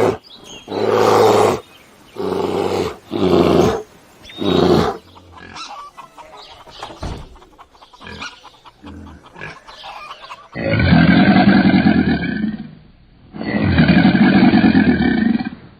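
A series of animal calls: four short pitched calls, a quieter stretch with scattered small sounds, then two long, loud calls near the end.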